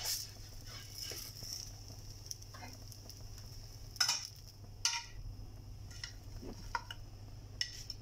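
A plastic spatula scrapes and taps against a non-stick frying pan as a folded dosa is turned and slid out, over light sizzling and a steady low hum. The loudest scrapes come about four and five seconds in.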